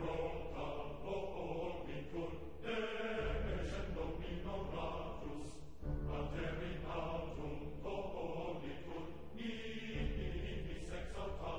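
Background music with chanting, choir-like voices in held chords, moving to a new chord every three to four seconds.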